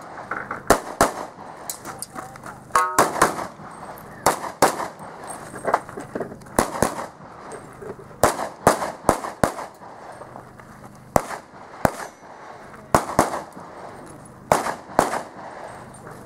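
Handgun shots fired rapidly, mostly in quick pairs of two, with short gaps between groups, over the course of a practical pistol stage.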